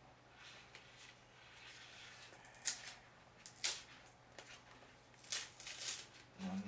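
Plastic protective film and its paper backing sheet being handled and flexed: soft rustling with sharp crackles, the loudest about three and four seconds in, then a quick run of crackles near the end.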